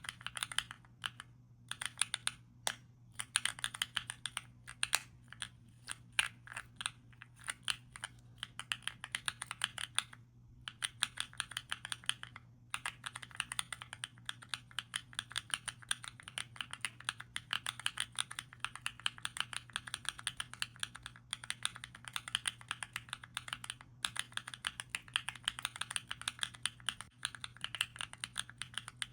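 Mechanical keyboard switches (Epomaker Zebra switches on a KEEBS Pad fidget keypad) being pressed in a fast, continuous run of soft, creamy clicks, with a few brief pauses, the longest about ten seconds in. A faint steady low hum sits underneath.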